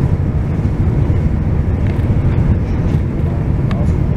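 Passenger train running: a steady low rumble, with one light click near the end.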